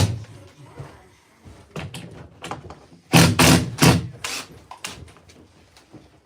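Sharp knocks and thuds of construction work on wood and drywall: a few light strikes, then a quick run of about four loud blows around three seconds in, and a few fainter knocks after.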